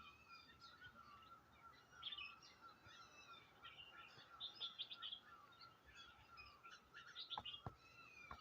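Faint chorus of several wild birds chirping and calling at once: many short overlapping notes and whistles, over a steady high-pitched tone.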